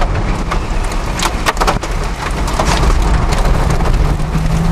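Wind-driven storm rain pelting a moving chase vehicle: a steady low rumble of wind and road noise, with many sharp ticks and knocks of rain and debris striking the windshield and body.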